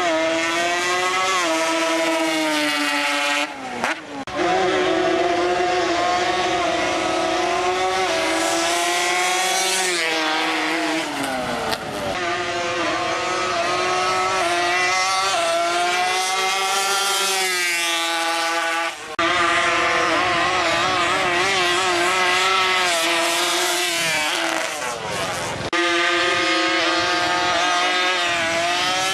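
Drag-racing ATV engine revving hard and held at high revs during burnouts, its pitch wavering up and down, with tyre spin under it. The sound breaks off abruptly several times.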